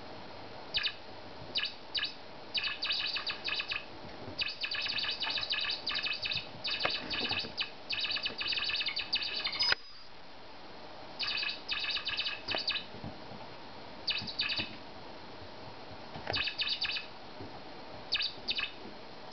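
Squeaky plush toy mouse chirping in quick runs of high-pitched squeaks as a kitten bats and pounces on it, the squeaks starting and stopping in bursts with short pauses between.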